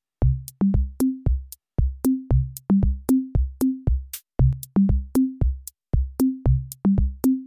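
Background music: an electronic drum-machine beat of sharp, evenly spaced hits, each carrying a short low bass note that steps between a few pitches.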